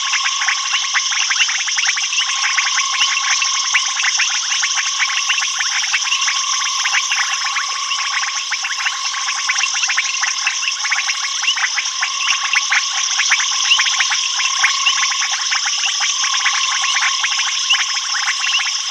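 Dense night chorus of frogs and insects: many rapid, overlapping clicks and pips over a steady high-pitched insect trill, unchanging throughout.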